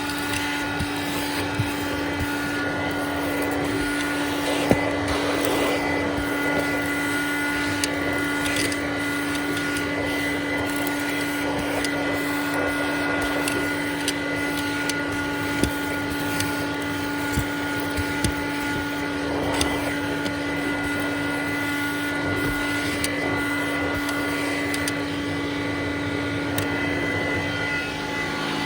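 A Hoover Dial-A-Matic model 1136 clean-air upright vacuum cleaner with an 840-watt motor, running on high suction, giving a steady motor whine. Scattered short knocks come through as the hose is worked over surfaces.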